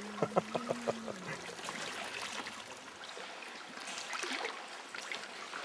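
Seawater trickling and lapping around rocks. In the first second or so there is a low steady hum with a quick run of about six clicks.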